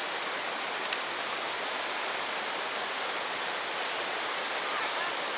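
Waterfall rushing, a steady even roar of falling water. A single faint click about a second in.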